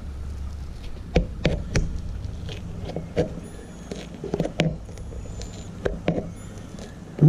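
Rubber foot pocket being pried and peeled off a glued carbon-fibre fin blade with a thin metal pick, giving irregular crackles and pops as the glue bond gives way, the sound of air trapped between the glued layers.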